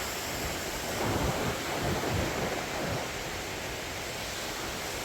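Ocean surf on a beach with wind buffeting the microphone, a little stronger between about one and three seconds in.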